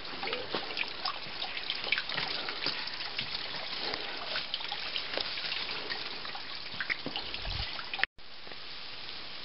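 Creek water trickling and dripping over rocks into a pool, a steady wash of water sound dotted with many small splashes. About eight seconds in it cuts out briefly and comes back as a smoother, steadier hiss of running water.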